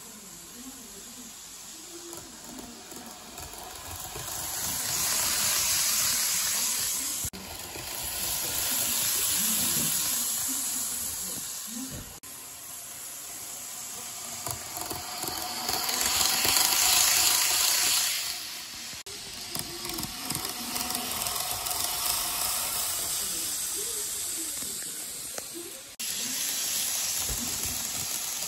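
N-gauge model train of the Tsubame running on plastic track: the whir of its small motor and the hiss of its wheels on the rails swell and fade several times as it passes close by. The sound changes abruptly at a few points.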